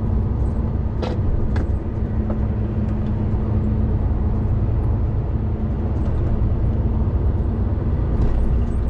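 Class one articulated lorry heard from inside the cab while cruising in traffic: a steady engine drone with road and tyre noise. There are a couple of faint clicks about a second in.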